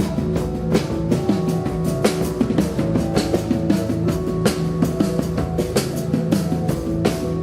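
A rock band playing live, with a driving drum kit and sustained guitar and bass notes in a steady rhythm.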